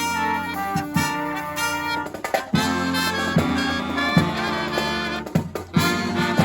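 Live marching brass band playing a Christmas arrangement, with trumpets, trombones and saxophones holding chords over drum beats.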